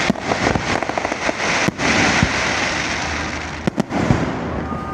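Aerial fireworks going off: a rapid run of sharp crackles and pops, swelling into a dense crackling wash around two seconds in, then a quick pair of sharp bangs just before four seconds.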